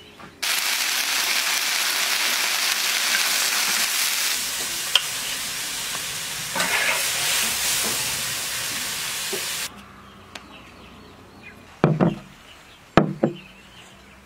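Chinese toon and egg pancake sizzling loudly in a hot wok. The sizzling starts abruptly and cuts off just as suddenly, after about nine seconds. Two short knocks follow near the end.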